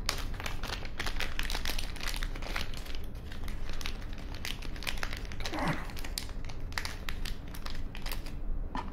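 Clear plastic bag crinkling and crackling irregularly as it is handled by hand to unwrap a small electronic sensor.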